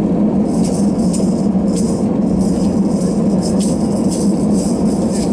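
Cabin of an Airbus A320-214 rolling on the ground: the CFM56 jet engines give a steady loud drone, with irregular short jingling rattles from the cabin every half second or so.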